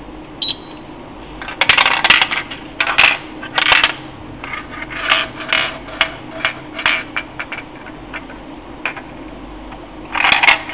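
Small steel ball clattering and rolling around inside the clear plastic dome of a golf-game toy alarm clock as it is tilted and turned, in irregular bursts of sharp rattling clicks. A single short electronic beep from a button press comes about half a second in.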